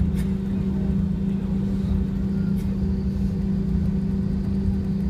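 Cabin noise of an Airbus A320-214 with CFM56-5B engines, rolling slowly on the ground: a steady low hum with rumble beneath, heard from inside the cabin. Two faint ticks come about a fifth of a second in and about two and a half seconds in.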